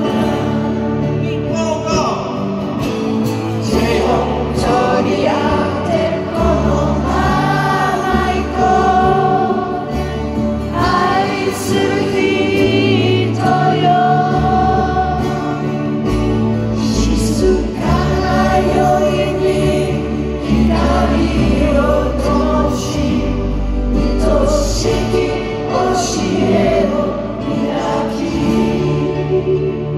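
Live band music led by acoustic guitar and singing, with a large arena audience singing along, recorded from among the crowd.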